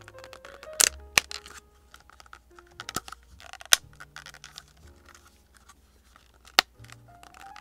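Plastic lid being pried and twisted off a small takeout soup container: several sharp plastic snaps and clicks, the loudest about a second in and the last near the end, with small crinkling handling sounds between.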